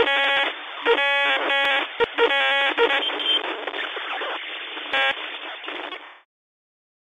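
Intro sound effect of radio-like static with several short bursts of buzzing electronic beeps, cutting off suddenly about six seconds in.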